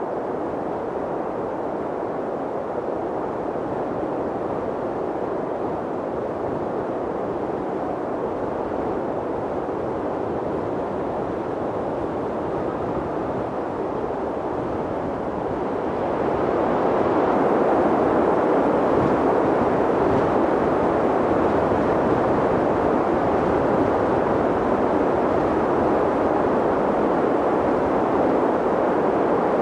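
Mountain wind blowing steadily, a rushing noise that swells louder a little past halfway through.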